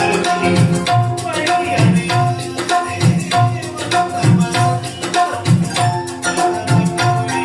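Music with a steady drum beat and bass, played back through a low-budget 5.1 amplifier's speakers as an audio test.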